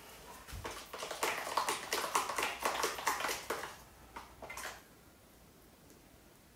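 A spoon stirring and scraping jam in a bowl: a rapid run of small clicks and taps for about three seconds, then a couple more as jam is scooped out.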